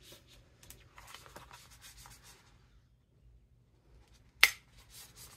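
Soft rustling of a cork fabric panel being handled, then near the end a single sharp click as a hand-held plier hole punch squeezes through the cork to make the snap hole, followed by a few fainter clicks.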